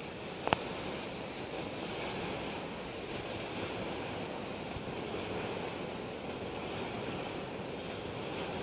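Steady rushing noise of wind on the microphone, mixed with a distant passenger train rolling across a lake trestle. There is one brief click about half a second in.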